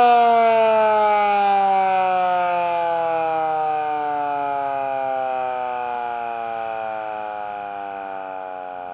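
Federal Signal Model 2 electromechanical warning siren winding down at the end of its attack signal: one long tone falling steadily in pitch and fading as the rotor slows.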